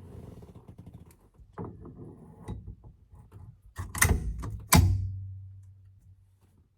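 NRG quick release steering wheel hub being worked off and back on: handling rattles, then two sharp metal clacks about a second apart as it unlatches and locks. A low hum lingers after the second clack and fades away.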